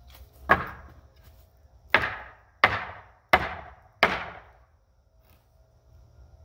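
Hammer striking the end of a long 2x4 brace, five blows with a brief ringing decay: one about half a second in, then four at a steady pace. The blows beat the over-length brace down so that it forces a bowed fence rail over, tight against the brick column before nailing.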